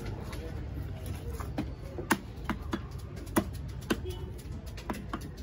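Heavy fish-cutting knife chopping through trevally pieces onto a wooden log chopping block: a run of sharp, irregularly spaced chops over a steady low background murmur.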